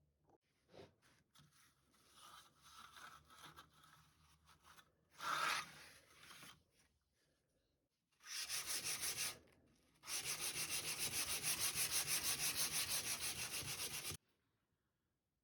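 Sandpaper rubbed on wood in quick back-and-forth strokes: a short run about eight seconds in, then a longer run of about seven strokes a second for some four seconds that stops abruptly. Lighter handling and scraping sounds come before it.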